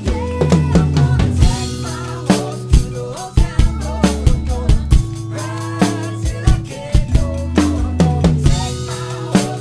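Acoustic drum kit played along to the song's backing recording: a steady groove of bass drum, snare and hi-hat, with cymbal crashes about a second and a half in and again near the end.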